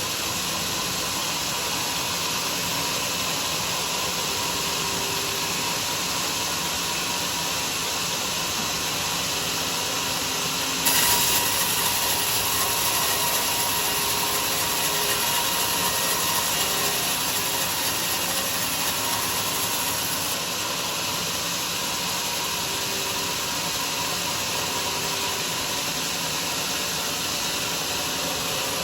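Homemade sawmill running: a steady, hissing machine noise from the saw and its motor, which jumps louder suddenly about a third of the way in and eases back a little past the middle.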